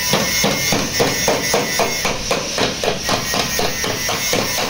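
A hand hammer repeatedly strikes the crumpled steel door pillar of an accident-damaged car in quick, even blows, about three a second, knocking the metal straight while a pulling clamp holds it under tension.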